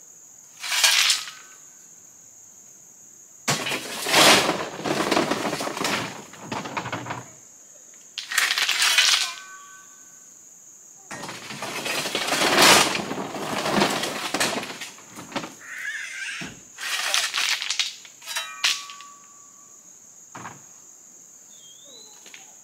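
Metal shovel scraping into a pickup bed of crushed gravel and flinging it out, the stones pouring and clattering onto the ground, in about five rough bursts of a few seconds each.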